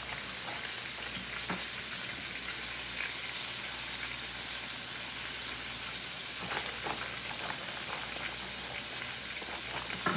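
Flour-battered chicken frying in hot oil in a skillet, a steady sizzle, with a few faint clicks from handling.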